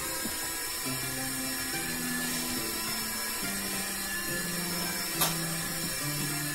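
Small electric lift motor of an automatic interfacial tension tester whirring steadily as it raises the sample cup, with a single sharp click about five seconds in.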